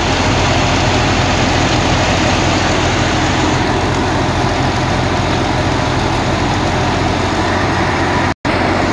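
Large diesel engine of a tracked rice combine harvester running steadily. The sound cuts out completely for a split second near the end.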